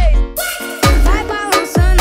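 Brazilian funk track playing an instrumental stretch of its beat, with deep bass kicks that slide down in pitch under a pitched melodic loop and no vocals.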